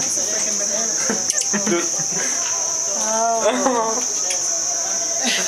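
Crickets trilling in a continuous, steady high-pitched night chorus, with a few voices over it.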